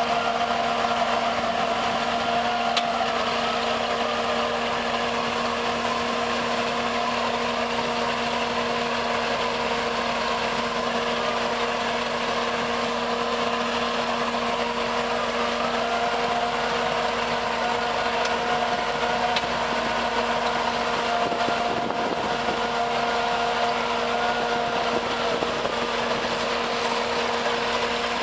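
Heavy construction machine's engine running steadily under a constant whine, its pitch stepping up and down slightly a few times.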